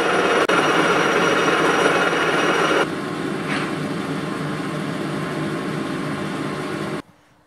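Metal lathe turning a steel pulley: the tool cutting metal over the running machine for about three seconds, then the lathe running more quietly with the pulley spinning, stopping suddenly near the end.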